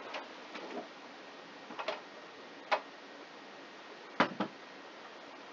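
Plastic anatomical animal model being picked up and handled on a tabletop: a scatter of light clicks and taps, with a sharp knock about halfway and a quick double knock about three-quarters through.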